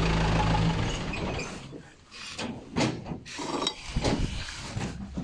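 A small truck's engine idling, then switched off about a second in. After that come scattered short clicks and knocks.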